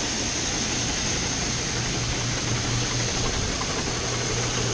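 Grain augers running steadily, driven by an electric-motor PTO cart, with shelled corn pouring from the wagon through them: a constant hum under a continuous rushing hiss.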